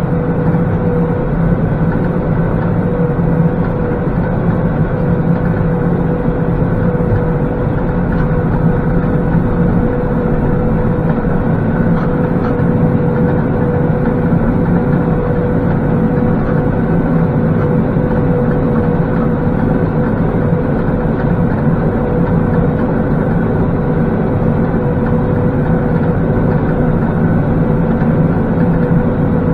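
Massey Ferguson 4707 tractor's diesel engine running steadily at about 1800 rpm under load, driving a Kubota BV4160 round baler off the 540 PTO while baling hay. A steady whine is held throughout.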